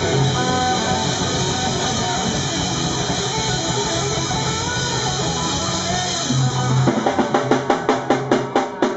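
Live rock band playing an instrumental passage: electric guitar and bass over drums, with a bending lead guitar line. About seven seconds in the drums switch to a run of hard, evenly spaced hits, roughly four or five a second, as the band builds to the song's close.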